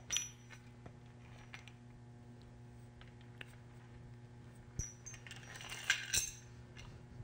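A few faint, scattered light clicks and clinks as antenna parts and tools are handled, with a small cluster about five to six seconds in, over a steady low electrical hum.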